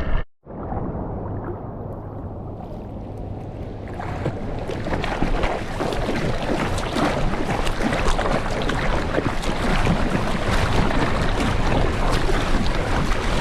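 Water splashing and rushing close to the microphone as a surfboard is paddled through the sea, the noise growing louder about four seconds in.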